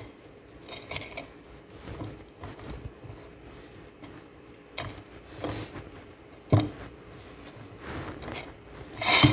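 Dry corn silk being handled and pressed into a stainless steel pot: soft rustling and scraping. A sharp knock comes about six and a half seconds in, and a louder burst of handling noise just before the end.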